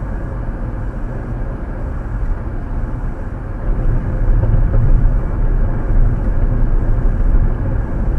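Steady road noise of a car cruising at about 65 mph on a freeway, heard inside the cabin: a low rumble of tyres with a hiss above it, getting somewhat louder a few seconds in.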